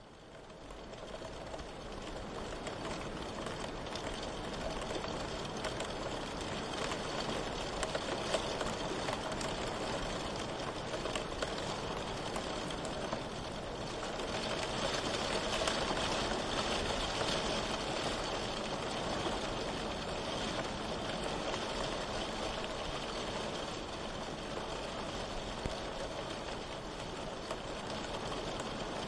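Steady rain ambience, a dense, even hiss of falling rain that fades in over the first second or two and then holds with gentle swells.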